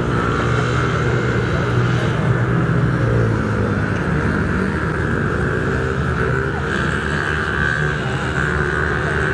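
Engines of small children's motocross bikes running on the track, a steady buzz whose pitch rises and falls gently as the riders work the throttle.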